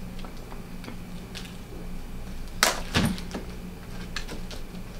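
Hands breaking apart a steamed blue crab: small scattered cracks and snaps of shell, with two louder sharp snaps a little past the middle.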